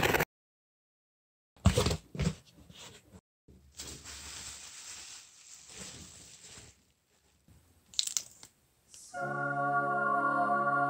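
Cartoon sound effects of packing tape being clawed and ripped off a cardboard box: a few sharp rips in the first three seconds, then a softer stretch of rustling noise. About nine seconds in, a held chord of music starts and carries on.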